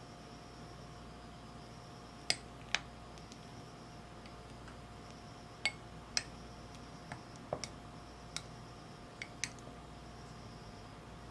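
A small metal spoon clinking against the glass pudding cup while scooping out whipped cream and custard pudding: about ten light, sharp clinks, in ones and pairs, a few seconds apart. A faint steady hum runs underneath.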